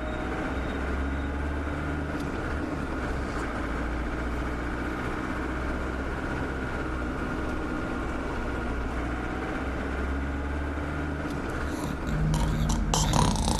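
A steady low rumble. About a second and a half before the end it grows louder, with a few short clicks.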